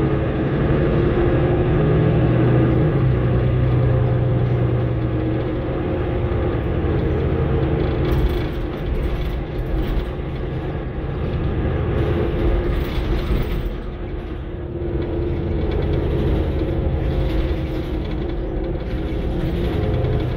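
Mercedes-Benz Citaro single-deck bus on the move, heard from inside the passenger saloon: a steady engine and drivetrain drone over road rumble and cabin noise, with the engine tone strongest in the first few seconds.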